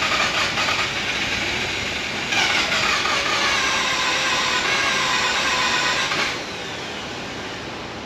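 Mazda RX-8's 1.3-litre rotary engine being cranked over by the starter without catching; the engine is flooded and low on compression. The cranking stops about six seconds in, leaving a quieter steady noise.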